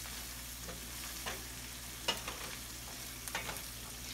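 Mixed vegetables and spices frying in oil in a stainless steel sauté pan with a steady sizzle, while a wooden spoon stirs them, scraping and knocking against the pan a few times, most sharply about two seconds in.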